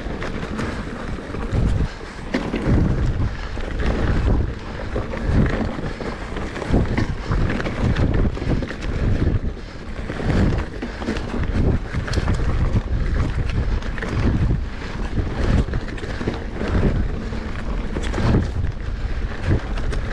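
Wind buffeting the microphone: a loud, uneven low rumble with a rushing hiss over it.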